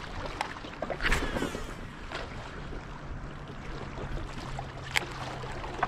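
A cast with a casting reel about a second in, the spool whirring briefly and falling in pitch as line pays out. A steady low background noise runs underneath, with a few light clicks from the reel and rod.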